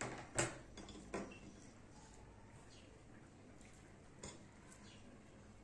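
A kitchen knife clinking against a metal baking tray: a few sharp knocks in the first second or so, the loudest about half a second in, and one more about four seconds in, with only faint handling between.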